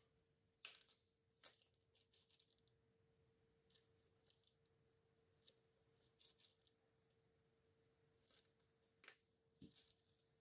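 Near silence with a scatter of faint clicks and taps, a dozen or so spread unevenly, as small craft supplies such as paint bottles and a mixing cup are handled on a tabletop. A faint steady hum runs underneath.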